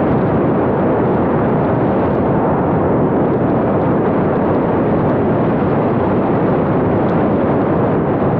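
Loud, steady rush of wind over a small action camera's microphone as it rides aboard a flying RC plane. No motor tone comes through.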